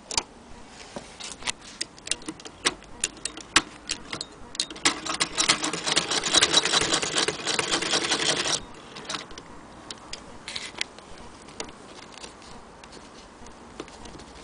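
Antique Frister & Rossmann hand-crank sewing machine stitching leather. Scattered clicks give way, about five seconds in, to about four seconds of rapid, even clicking as the machine is cranked fast, then it drops back to occasional clicks.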